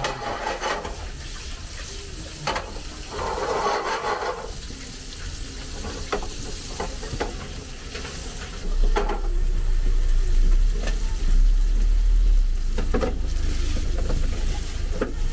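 Chunks of food frying in a nonstick frying pan on a portable gas stove, sizzling as the pan is stirred and tossed, with short scraping rattles and clicks. A low rumble comes in about nine seconds in and stays louder to the end.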